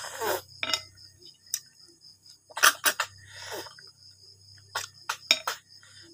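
Short sucking slurps as cooked snail meat is sucked out of the shells, once near the start and again about halfway through, with scattered small clicks of shells and fingers. Crickets chirr steadily in the background.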